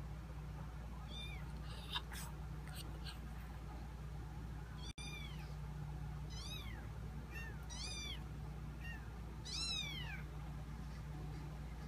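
Kittens mewing: a run of short, high-pitched cries that rise and fall in pitch, about seven of them, coming more often and louder in the second half.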